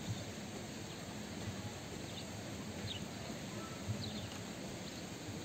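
Steady outdoor background noise with a few faint, short, high bird chirps about two, three and four seconds in.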